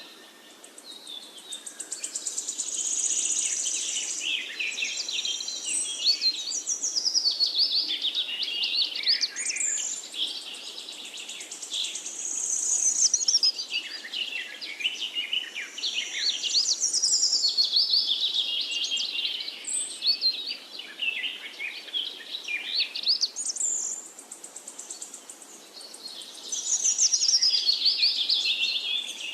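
Several songbirds singing and chirping at once, with overlapping warbled phrases that swell and fade every few seconds, over a faint background hiss.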